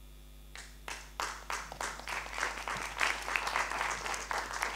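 Audience applauding: a few scattered claps begin about half a second in and swell within a second into steady, dense applause.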